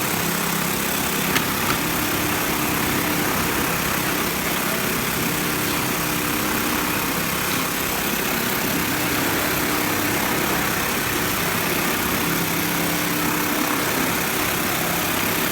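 A 3020 shoe sewing machine running. It makes a steady mechanical hiss, with a motor hum that comes and goes in stretches of a few seconds.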